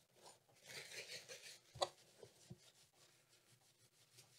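Faint rubbing from wiping old thermal paste off laptop cooling parts, lasting about a second, followed by one small sharp click a little under two seconds in.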